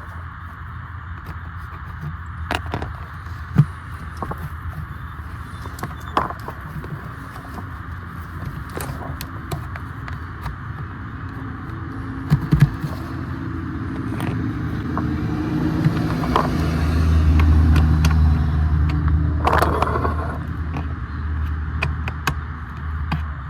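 A motor vehicle's low rumble that swells from about the middle, peaks a few seconds later and eases off near the end, over a steady hum and scattered clicks and knocks of plastic trim and cable being handled.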